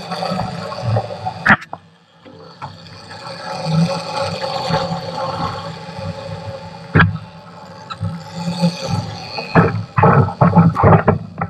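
Wake water rushing and wind noise behind a boat trolling under twin outboard motors, with the outboards' low running note underneath. Sharp knocks break in now and then, most of them clustered near the end.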